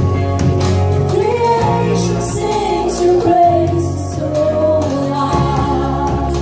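Live worship band playing a slow song, with a woman singing the melody over keyboard, electric guitar and drums.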